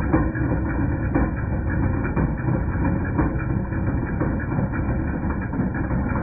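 2010 Jeep Patriot 2.0 engine running with a metallic clanking from the accessory drive, a rapid uneven knocking over the steady engine sound. The clank was traced to a failing alternator: it went away once the alternator was replaced.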